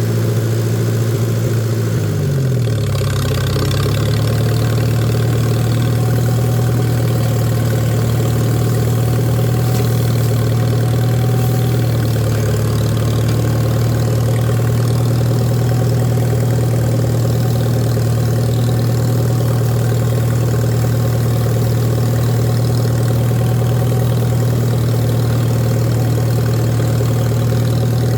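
Tractor engine running steadily; its speed drops about two to three seconds in, then holds at a steady lower pace.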